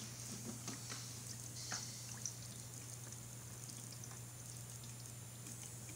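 Quiet aquarium background: a steady low hum with faint water trickling and a few small ticks.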